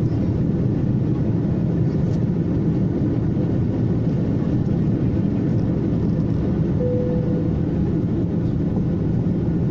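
Airliner cabin noise in flight: the steady, loud rumble of the engines and rushing air. A short steady tone sounds about seven seconds in.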